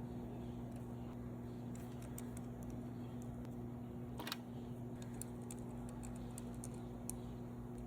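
Small plastic Lego minifigure pieces clicking as they are handled and pressed together: a scatter of light clicks, with one sharper snap about four seconds in, over a steady low hum.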